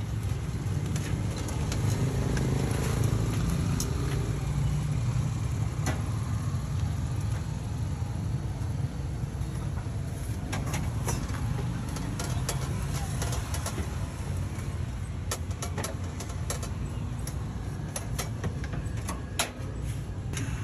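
Steady low rumble of street background noise, with frequent short metallic clicks and clinks of steel tongs against a griddle and trays, more of them in the second half.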